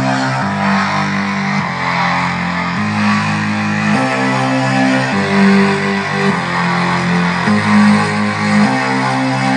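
Guitar-led music played through a Taramps Home 80W amplifier and Sony speakers, its chords changing about once a second at a steady level.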